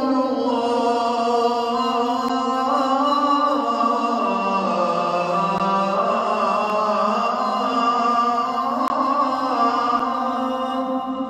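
Background vocal music: slow chanting with long held notes that step slowly up and down.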